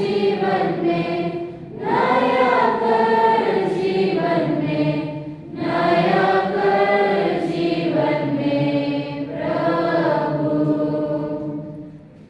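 A choir of many voices singing a hymn together in long, held phrases, with short breaths between lines; the singing fades out as the hymn ends near the end.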